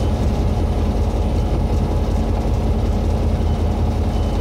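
Diesel-electric locomotive engine (TRA R123) running with a steady low drone.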